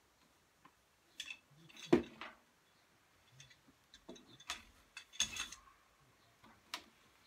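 Wooden clicks and knocks of a three-heddle rigid heddle loom being worked by hand, its heddles moved into a new position for the next shed. The loudest knock comes about two seconds in, and a quick cluster of clicks about five seconds in.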